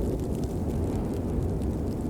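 Steady rain falling, a dense low rumble with faint scattered drop ticks above it.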